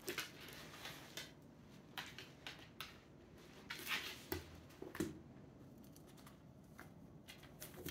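Shiba Inu gnawing and tugging at a fabric toy: faint, irregular clicks and rustles, with a couple of louder soft knocks near the middle.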